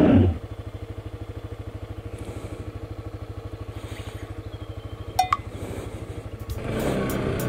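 Suzuki GSX-S125's single-cylinder four-stroke engine idling with an even low pulse, then revving up as the bike pulls away near the end.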